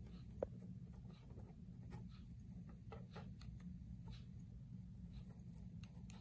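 Faint, irregular small clicks and scratches of a hot glue gun's nozzle working against popsicle-stick joints while glue is spread, one tick a little louder about half a second in, over a low steady room hum.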